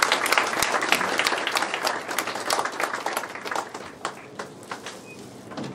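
Audience applauding, a dense clapping that thins out and fades after about four seconds.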